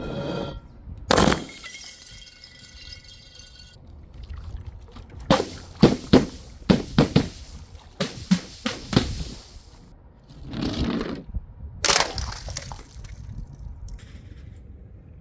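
Glass bottles smashing: a sharp break about a second in with the glass ringing for a few seconds after, then a quick run of cracking, crunching breaks, and one more break near the end.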